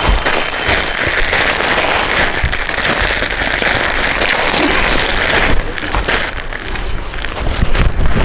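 Plastic garment packaging crinkling and rustling as a kurti is handled and pulled out of its bag. It is a dense, steady crackle that breaks into separate rustles after about five and a half seconds.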